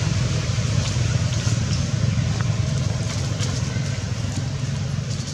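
A steady low rumble, like a motor vehicle's engine running, with a few faint ticks above it.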